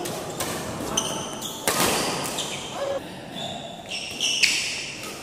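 Badminton rally: rackets strike the shuttlecock several times with sharp smacks, the loudest about four seconds in. Shoes give short squeaks on the court floor between the hits.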